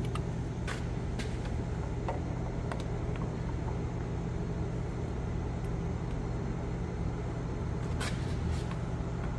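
A steady low mechanical hum, with a few light clicks on top.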